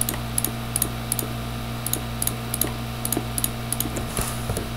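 Computer mouse and keyboard clicks, a string of short irregular clicks as polygons are selected in a 3D modelling program, over a steady low electrical hum.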